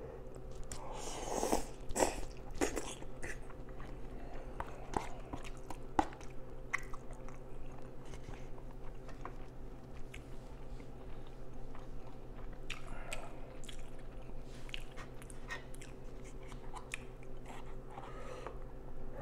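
Close-up eating sounds of a man slurping and chewing instant cup noodles, with small clicks of a fork against the cup. The loudest slurps come about a second or two in. A steady low hum runs underneath.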